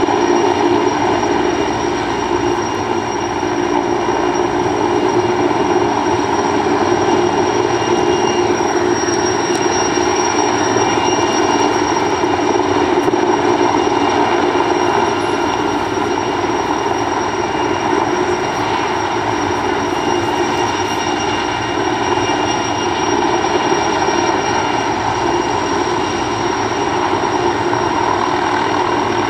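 A Sikorsky S-64 Skycrane heavy-lift helicopter and a small light helicopter hovering together: a loud, steady drone of rotors and turbine engines with a thin, steady high whine over it.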